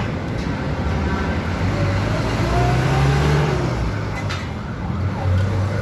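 A motor vehicle engine running nearby over a steady low rumble, swelling and rising then falling in pitch about halfway through.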